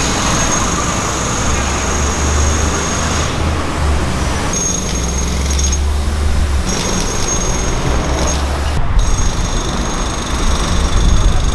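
City street traffic: a steady deep rumble of passing cars and buses with tyre hiss.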